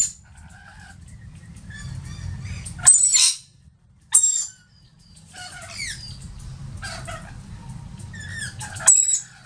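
Rainbow lorikeets calling, with the young bird's squeak among them: four short, sharp, high squeaks, at the start, around three and four seconds in, and near the end, with softer chattering and quick gliding chirps in between. A low steady rumble runs beneath.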